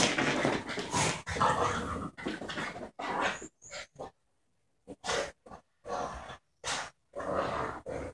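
A Border terrier and a French bulldog playing rough together, making dog noises in irregular bursts: dense for the first few seconds, a pause about four seconds in, then shorter separate bursts.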